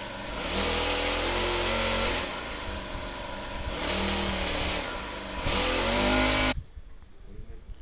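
Small brush-cutter engine on a mini cultivator running and revved up three times, then cut off suddenly near the end.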